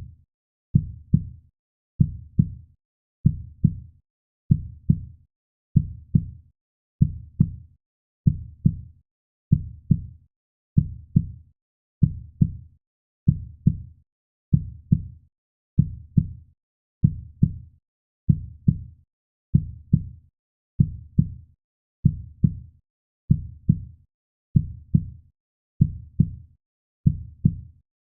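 Heartbeat sound, a slow steady lub-dub: paired low thumps repeating about once a second, with quiet gaps between beats.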